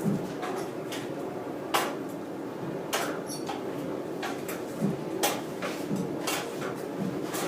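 Hand hammer blows on the hot wrought-iron gun barrel at the anvil during forge welding: several sharp, dull strikes at uneven intervals, roughly one a second, over a steady background noise.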